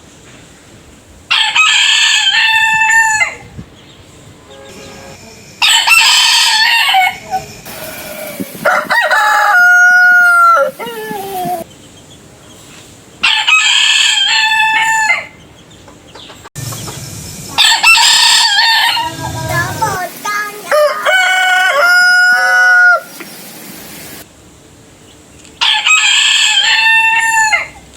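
Roosters crowing one after another, about seven crows of two to three seconds each, from different birds with differently pitched and shaped crows, some ending in a falling slur.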